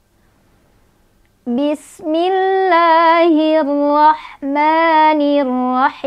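A woman's voice chanting Quran recitation in a slow melodic style, with long held notes. It starts about a second and a half in and pauses briefly twice.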